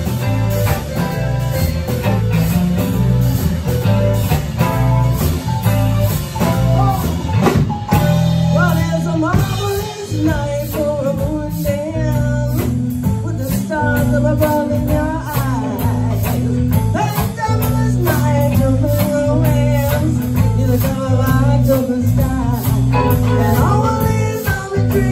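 A live band playing a blues-flavoured song: a steady drum beat, a heavy bass line, keyboards and electric guitar. Lead vocals come in about nine seconds in.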